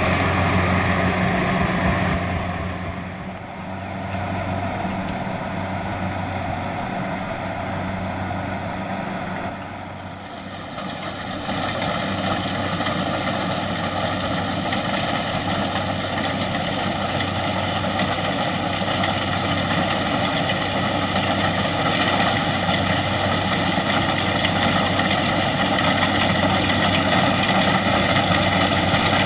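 Kubota DC-70 Plus combine harvester running with a steady engine hum and machinery noise. It drops away a few seconds in, stays quieter for several seconds, then comes back up and holds steady.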